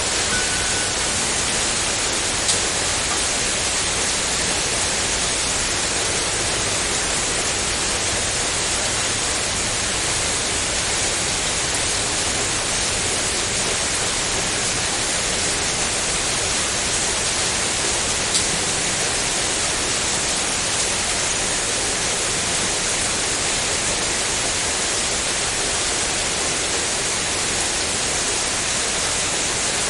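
Steady rain: an even, unbroken hiss of falling rain, with two brief sharp ticks, one a few seconds in and one about two-thirds of the way through.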